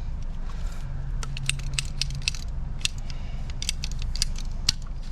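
Irregular light clicks and clinks of small plumbing fittings and tools being handled, over a low steady hum.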